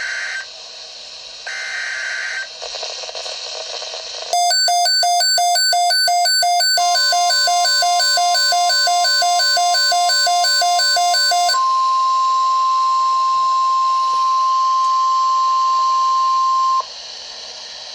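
An EAS broadcast on NOAA Weather Radio: the last two SAME header data bursts near the start, then a weather alert receiver's loud electronic alarm beeping from about four seconds in. Under the beeping the steady 1050 Hz NOAA Weather Radio warning tone comes in; it carries on alone once the beeping stops and cuts off about a second before the end.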